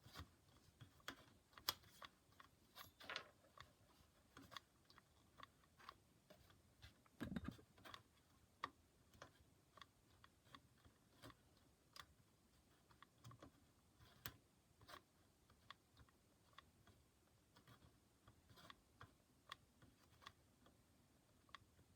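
Faint, irregular small clicks and ticks of a screw being twisted left and right by hand to work it loose from the wooden sewing-table top. There is a dull knock about seven seconds in.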